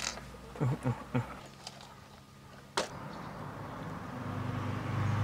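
Clicks and taps of small parts being handled and fitted into a radio-controlled crawler's chassis, with a sharp click a little before three seconds in. A low hum swells over the last two seconds.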